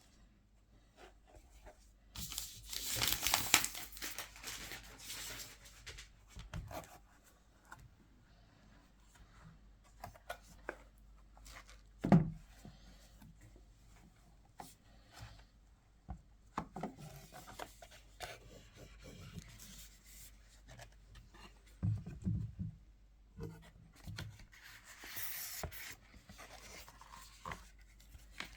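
Cardboard and paper packaging being handled and torn open during an unboxing: a tearing, rubbing noise a couple of seconds in, a sharp knock about twelve seconds in, a few low thumps later, and more rubbing and rustling near the end.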